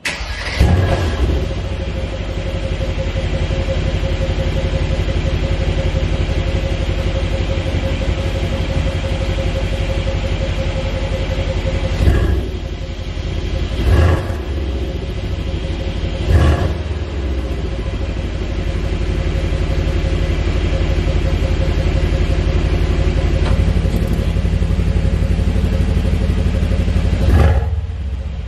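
Mercedes-AMG C63 S's 4.0-litre twin-turbo V8 on its stock exhaust in Comfort mode, starting about half a second in without the loud start-up flare, then idling steadily. It is blipped briefly three times around the middle and once more near the end.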